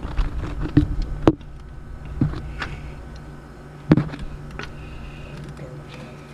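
Scattered metallic clicks and knocks of bolts and a bracket being handled and threaded by hand into a new water pump, over a steady low hum.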